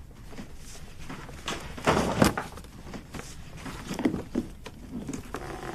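Paper gift bag and cardboard gift box being handled and opened: a series of short rustles and scrapes, loudest about two seconds in.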